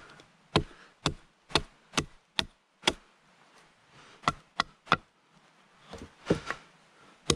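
A blade chopping into wood by hand: a run of sharp, separate strikes about two a second, a short pause, then three quicker strikes and a few more near the end.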